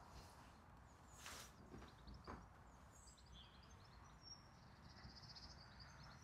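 Near silence: quiet outdoor ambience with faint distant birdsong, a few chirps and a short trill about halfway through.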